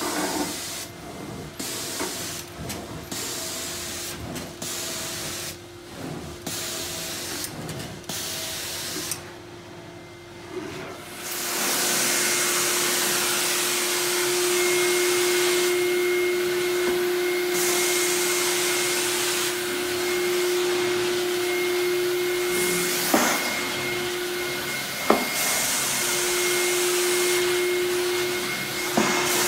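Carpet extraction machine's vacuum pulling water up through the cleaning wand as it is drawn over carpet, a steady hissing suction with a held tone. It is quieter and broken for about the first ten seconds, then runs louder and unbroken, with a couple of brief sharp clicks after the middle.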